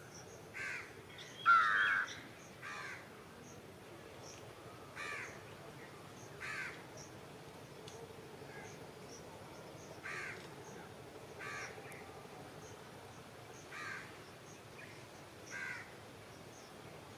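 A crow cawing repeatedly, a short caw every second or two, with one louder caw about a second and a half in. Faint high chirps sound in the background.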